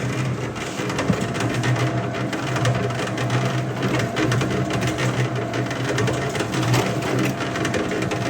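Electric concrete floor grinder running on a concrete slab: a steady motor hum under dense grinding chatter. Its grinding teeth are worn down.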